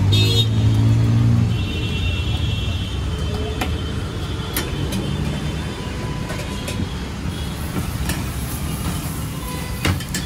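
Steady low rumble of road traffic, with a vehicle engine or horn-like tone standing out in the first second and a half. Scattered sharp metal clinks from a cook's spatula and tavas.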